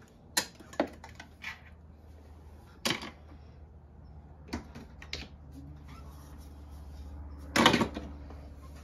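3D-printed plastic parts dropped into a cardboard box of other printed parts, clattering: a string of sharp clacks spread out, the loudest a short rattling cluster near the end as a long arm piece lands.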